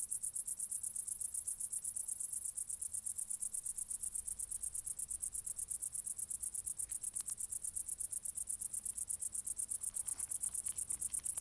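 Cricket chirping: a high-pitched, fast, even pulsing that keeps up without a break.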